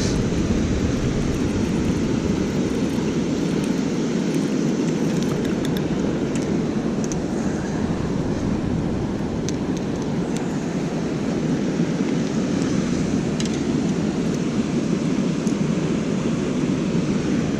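Steady roar of water pouring over a river dam, even and unbroken, with a few faint ticks over it.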